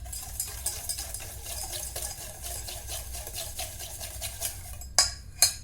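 Whisk beating oil and brown sugar in a bowl in fast, steady scraping strokes, then two sharp knocks near the end.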